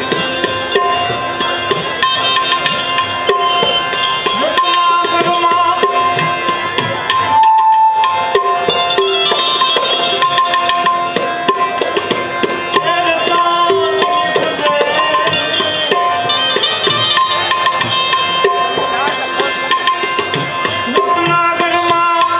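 Tabla playing a steady rhythm under a melodic instrumental line: an instrumental interlude in Gujarati devotional bhajan music. The drumming drops out briefly about seven seconds in while a single note is held, then resumes.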